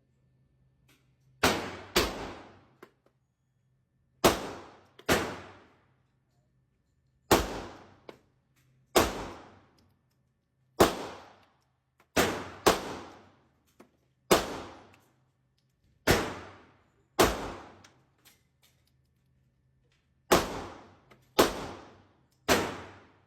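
About fifteen gunshots fired at an irregular pace, several in quick pairs, each followed by a long echoing decay.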